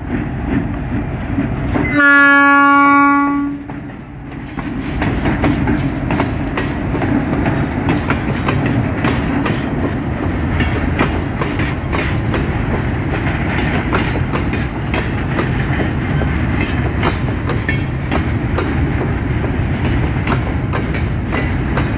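Alco RSD-16 diesel locomotive sounds one horn blast about a second and a half long, about two seconds in. Then the locomotive's engine and a long train of empty hopper wagons roll past close by with a steady heavy rumble and many sharp wheel clicks.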